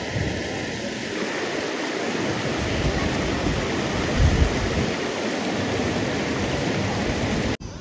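Steady rush of white water pouring over rock in a forest stream below a waterfall, with a brief low thump about four seconds in.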